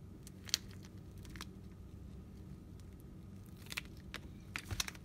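Epoxied knife handle scales cracking as C-clamps squeeze them together: a few sharp cracks, one about half a second in and a cluster near the end, over a faint steady hum. The cracking is the handle material breaking under the clamp pressure.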